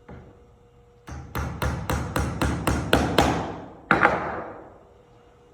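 Hammer driving a long nail through a wooden toolbox end into a dowel: about nine quick blows, roughly four a second, then a harder final blow a little before four seconds in that rings briefly as it fades.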